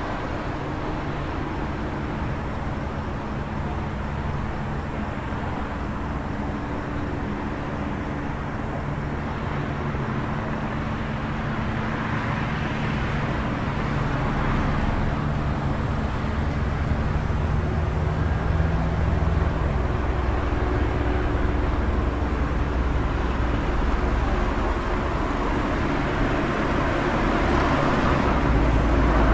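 City traffic at night: a continuous rumble of road traffic with a low engine hum, vehicles swelling past now and then, growing a little louder toward the end.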